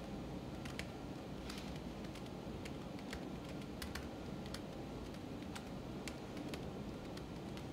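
Faint typing on a laptop keyboard: single keystrokes at an irregular, unhurried pace, with short gaps between them.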